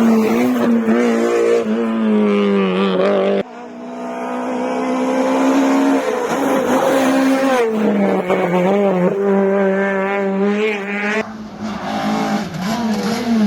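Rally car engines at high revs on a closed stage, the note rising and falling through throttle and gear changes. The sound breaks off abruptly twice, about three seconds in and again near the end, as one car's pass gives way to the next.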